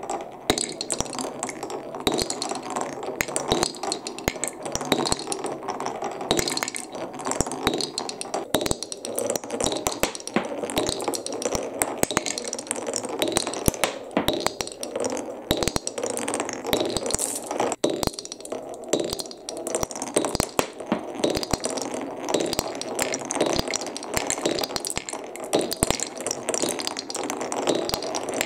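Many marbles rolling and clattering down a wooden HABA marble run: a dense, continuous stream of rapid clicks and clinks as the balls hit the wooden track pieces and each other.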